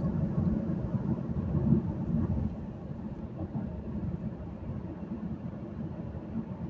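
Steady low rumble of road and engine noise heard inside a moving car's cabin, dropping a little after about two and a half seconds.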